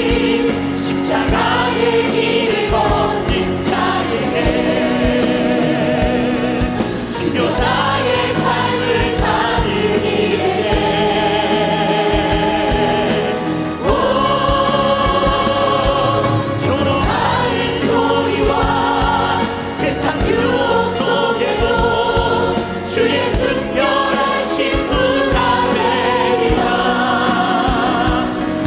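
Church choir singing a Christian praise song in Korean with instrumental accompaniment and a steady beat, holding long notes from phrase to phrase.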